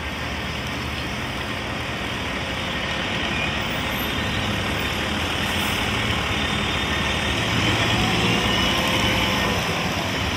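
City transit bus pulling away and driving off: a steady diesel engine hum with tyres hissing on wet pavement, swelling a little about eight seconds in.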